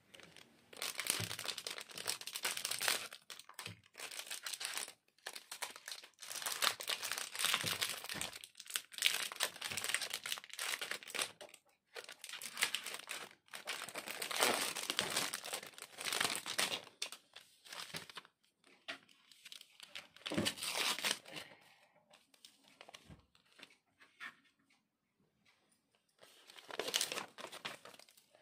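Chocolate-bar wrappers crinkling as they are unwrapped by hand: the plastic outer pack and the thin gold and silver foil inner wrap of a Cadbury Dairy Milk Silk bar. The crinkling comes in bursts a second or two long with short pauses, goes quiet for a few seconds near the end, then starts again.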